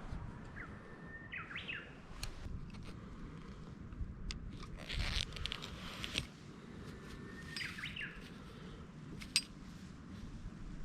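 A bird calls twice, about six seconds apart, each call a short flat whistle followed by a few quick rising notes. Under it runs a low steady background noise with scattered clicks and a brief rustle midway.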